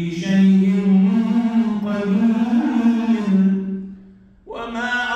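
A man reciting the Qur'an in a slow melodic chant, holding long drawn-out notes. He breaks off briefly for a breath about four seconds in, then resumes.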